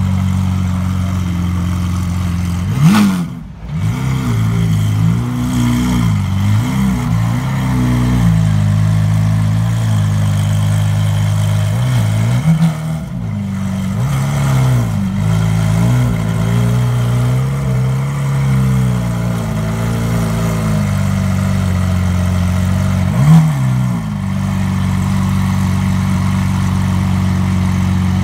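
Lamborghini Aventador's V12 idling steadily, blipped on the throttle: a sharp rev about three seconds in, a string of lighter blips through the middle, and another sharp rev near the end.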